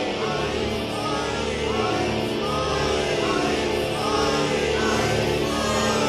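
Background music with singing voices over held low notes.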